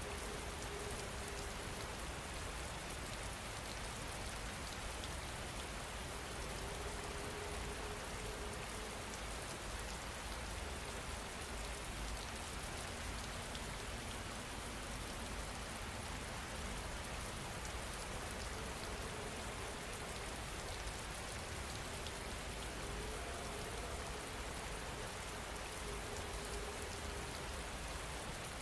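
Steady rain falling, an even continuous patter with no breaks.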